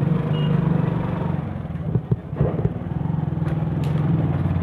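A small vehicle engine running steadily on the move, with a fast, even low pulse. There are a few short knocks and clatters about halfway through.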